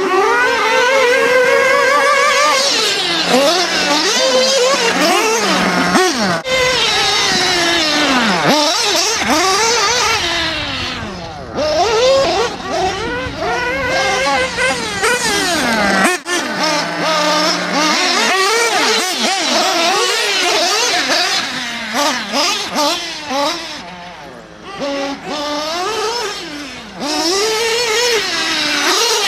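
Several radio-controlled off-road race cars running on a track, their motors whining and sweeping up and down in pitch as they accelerate, slow and pass, several at once and overlapping.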